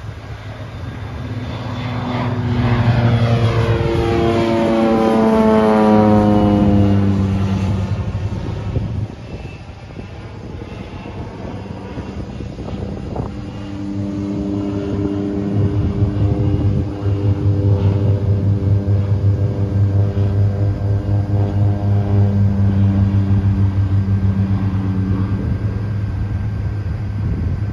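Crop-dusting airplane's propeller engine passing by, its drone falling in pitch as it goes past a few seconds in. It comes back louder and drones more steadily from about halfway on.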